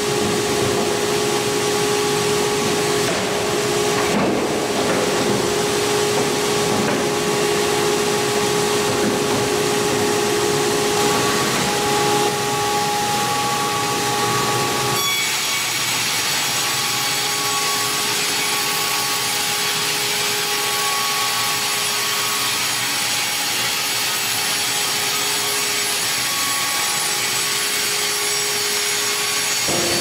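WRAVOR WRC 1000 horizontal band sawmill sawing a squared timber: a steady, loud cutting noise with a constant whine. The sound changes abruptly about halfway through, then runs steady again.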